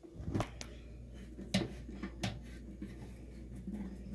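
A few scattered sharp clicks and knocks from handling a screwdriver and metal parts while dismantling a microwave, over a low steady hum that starts about half a second in.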